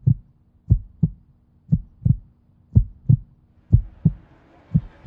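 Heartbeat sound effect: pairs of short low thumps, lub-dub, repeating about once a second over a faint steady hum.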